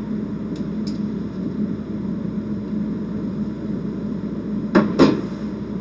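Two sharp clacks of clay casino chips being handled at the table rail near the end, over a steady low background hum; two faint clicks about half a second in.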